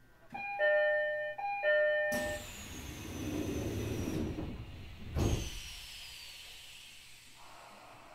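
E129 series train door chime, a two-tone ding-dong played twice. A rush of air follows with a thin falling whistle, and the doors move, ending in a heavy thud about five seconds in.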